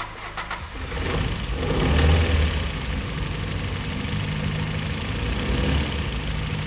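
Toyota 4A-GE 20-valve four-cylinder engine picking up about a second in and rising briefly before settling into an idle, running on three of its four cylinders.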